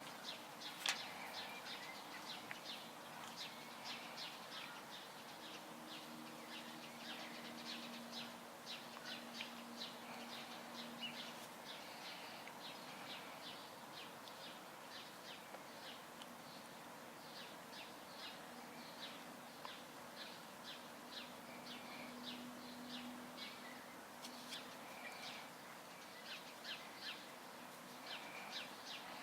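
Outdoor ambience with small birds chirping over and over in quick, high notes, and a faint low steady hum that comes and goes.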